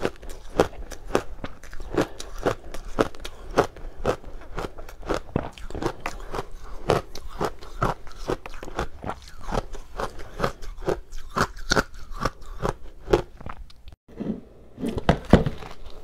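Close-up chewing of crunchy frozen matcha ice: a steady run of crisp crunches, about three a second. Near the end it breaks off briefly, then comes a loud crunching bite into a slab of the ice.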